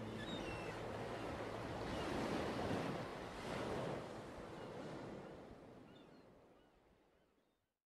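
Sea waves washing with some wind, fading out gradually near the end.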